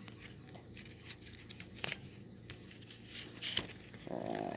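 Faint rustling and handling of construction-paper heart coupons, with a few light clicks.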